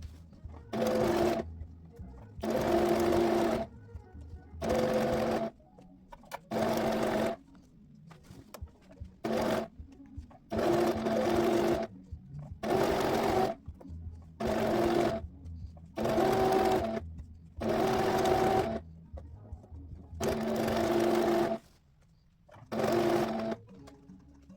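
Noisy domestic sewing machine stitching in short bursts, starting and stopping about a dozen times, each run lasting around a second with a steady hum.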